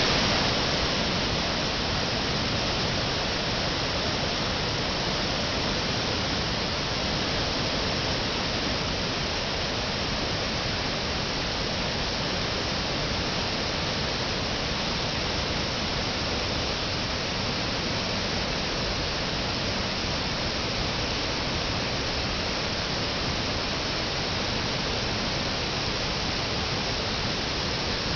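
Great Falls of the Passaic River: a large waterfall's steady rush of falling water, a little louder in about the first second.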